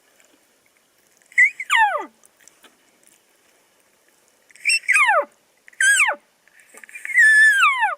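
Four cow-elk mews, each a high whistle that slides steeply down in pitch. The last is the longest and holds its pitch briefly before it falls.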